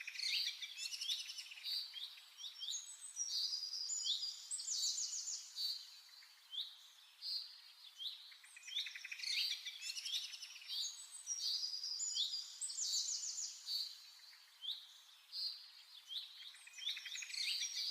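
Birdsong of quick chirps and fast trills, with several short phrases overlapping. The same run of phrases comes round about every eight seconds.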